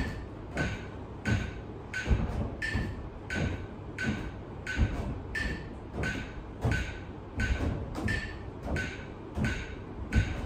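Phone metronome app beeping at a steady beat, about one and a half beats a second, pacing a step test; some beats are slightly higher in pitch. Footsteps thud in time as a person steps up and down onto a chair.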